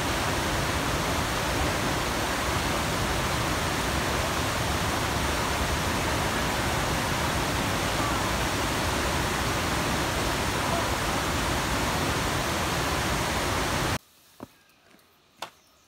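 A tall waterfall pouring into its plunge pool: a steady, even rush of falling water. It cuts off suddenly near the end, leaving a quiet spell with a couple of clicks.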